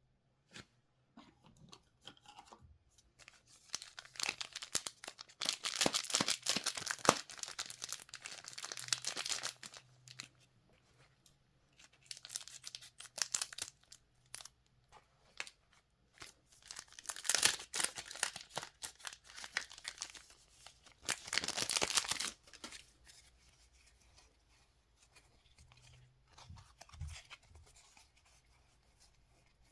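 Trading card pack wrappers being torn open and crinkled by hand, in three spells of crackling tearing with quieter handling between them.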